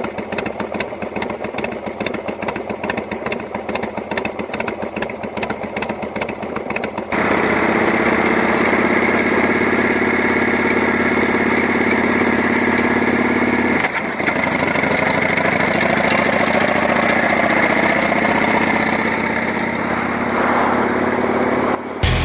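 Motorcycle V-twin engine running: rapid, uneven firing pulses for the first seven seconds or so, then a louder, steadier note that holds its pitch.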